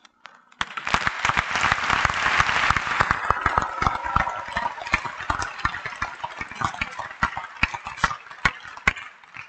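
Audience applauding, a dense patter of many hands clapping that starts about half a second in and thins out near the end.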